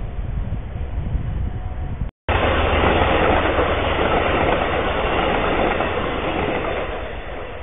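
Wind rumbling on a trail camera's microphone, then after a sudden cut about two seconds in, an Amtrak passenger train's stainless-steel coaches passing close by: a loud, steady rush of wheels on rail that eases off a little near the end.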